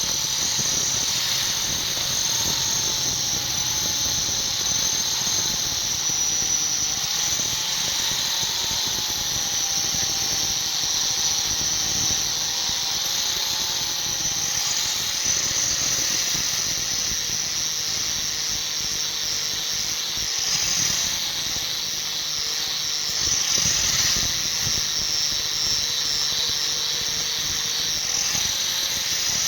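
Power grinder grinding the steel of a knife blank: a loud, steady high hiss with a faint wavering tone beneath it, shifting slightly as the work is pressed to the wheel.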